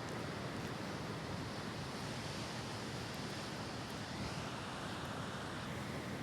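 Steady ocean surf with wind on the microphone, an even rushing noise with no distinct events.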